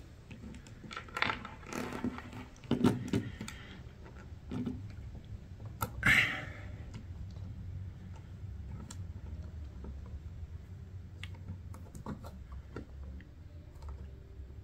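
LEGO Technic plastic pieces clicking and rattling as they are handled and pressed onto a crank wheel, in irregular clicks and short rustles.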